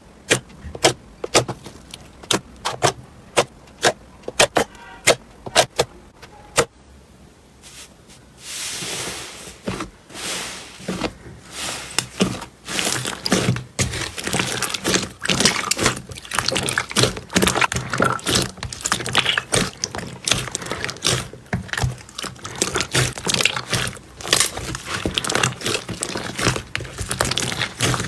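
Slime being played with by hand: sharp pops about two or three a second for the first several seconds, then, after a short lull, dense continuous crackling and squishing packed with small pops.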